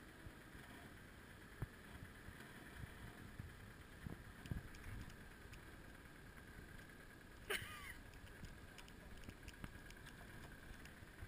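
Faint, low sound of a small 4x4 creeping slowly over a rock slab, with a few soft knocks and one sharp click about seven and a half seconds in.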